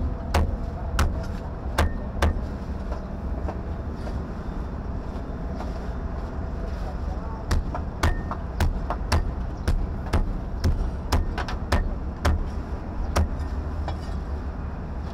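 A cleaver chopping on a cutting board: sharp knocks about two a second, in a run near the start and a longer run from about the middle, over a steady low rumble of background noise.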